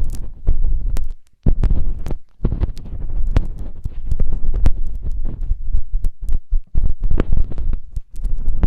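ASMR ear massage: something rubbed and scratched right against an ear-shaped binaural microphone, giving loud irregular deep rumbles crackling with sharp clicks. There are brief pauses about one and two seconds in.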